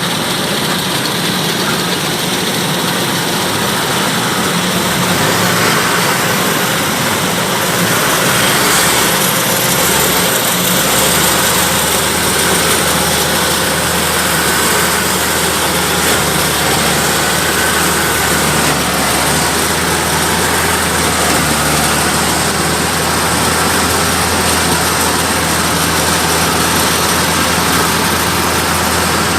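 Kubota DC-105X combine harvester running steadily. A deeper low hum from the machine sets in about eleven seconds in.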